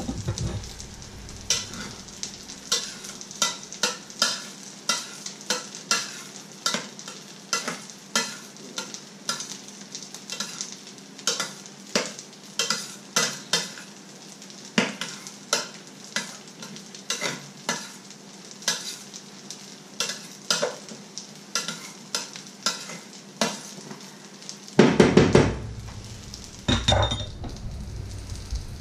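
Stirring rice in a stainless steel pot, the utensil clicking against the pot roughly twice a second, over the steady sizzle of food frying in a pan. Two loud thumps near the end.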